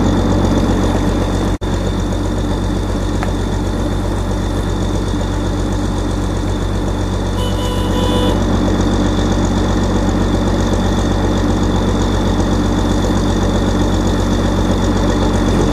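Snowcat engine running steadily under load as the cat climbs through the trees, a low even drone. The sound drops out for an instant about a second and a half in.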